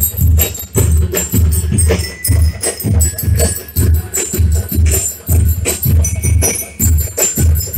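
A school drum and lyre corps playing: bass drums beating about twice a second under rattling snare drums, with bell lyres ringing out the tune.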